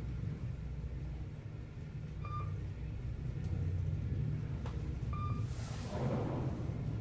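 Elevator car running with a steady low rumble, with two short electronic beeps about three seconds apart and a brief hiss near the end.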